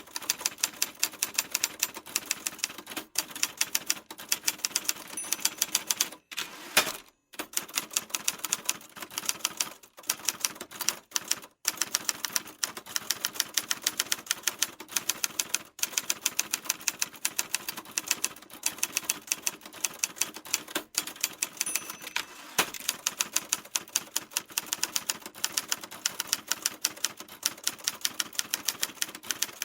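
Typewriter being typed on: a rapid, steady run of keystrokes with a few short pauses, and one louder clack about seven seconds in.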